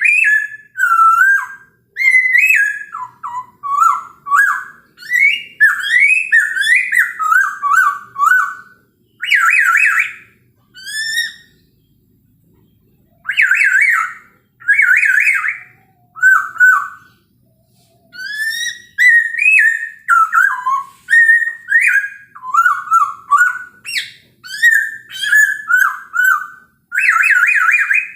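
A Poksay Hongkong (masked laughingthrush) in full song. It gives phrases of loud, gliding whistled notes broken by quick rattling trills, with two short pauses, about twelve seconds in and again about five seconds later.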